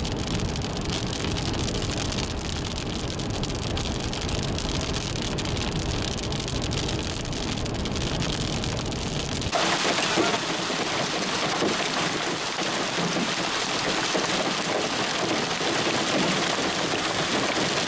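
Rain and hail ticking on a vehicle's windshield and roof over a low rumble. Then, about nine and a half seconds in, it cuts to a dense hiss of hail and heavy rain pelting pavement.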